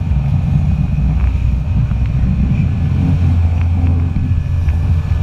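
Jet ski engine running at speed, a steady loud low drone, with wind buffeting the microphone.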